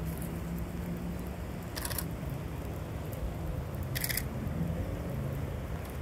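Canon 7D DSLR shutter firing twice, about two seconds apart, each a short crisp clack. Underneath is a steady low background rumble.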